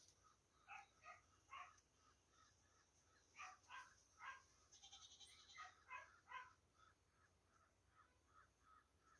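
Faint animal calls: short, harsh notes in three groups of about three, over a steady faint ticking.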